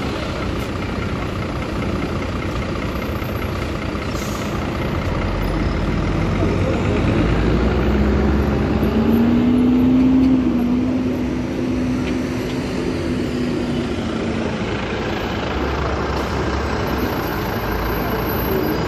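City buses running close by at a stop, a deep diesel rumble under street traffic. About halfway through one bus pulls past, its engine growing louder with a steady whine that rises slightly and then fades after a few seconds.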